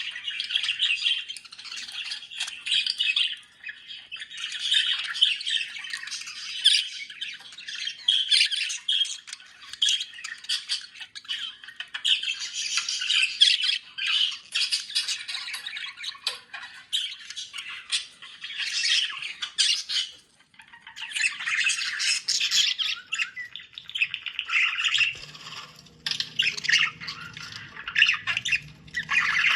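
Budgerigars chattering and warbling in a continuous stream of fast squawks, chirps and trills, with a few brief pauses. A faint low hum comes in near the end.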